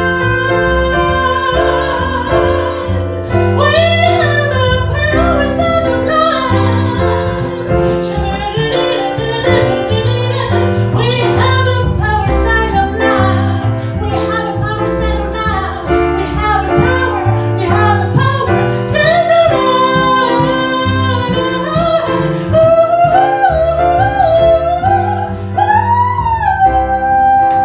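A woman singing a winding melody over piano and bass in a live jazz performance. Her voice comes in about three seconds in, over the steady accompaniment.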